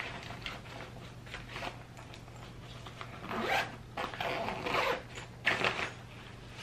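Zipper on a fabric shoe bag being pulled shut in three short runs, starting about three seconds in. Before that, the bag rustles softly.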